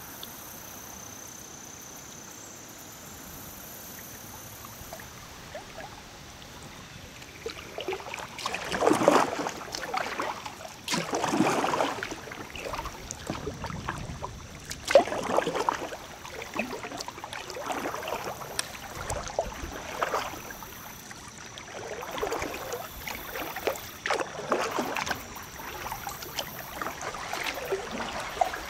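Kayak paddles dipping and splashing in river water in a steady stroke rhythm, about one stroke every two seconds, starting several seconds in. Beneath them runs the steady sound of the flowing river.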